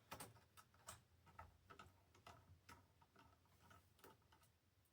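Faint, irregular clicking, about three clicks a second, from a small Phillips screwdriver bit turning out a tiny bottom-case screw of a 2006 MacBook Pro; the clicks stop shortly before the end.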